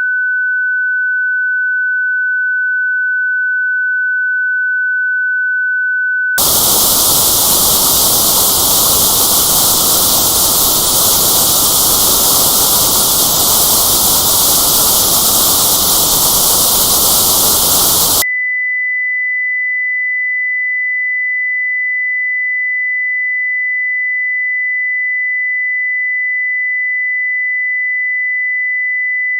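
Tinnitus test signals: a steady pure test tone of about 1,500 hertz, then after about six seconds loud white noise with a band around 2,000 hertz notched out, which cuts off suddenly after about twelve seconds into a steady pure tone of about 2,000 hertz, the frequency of that notch.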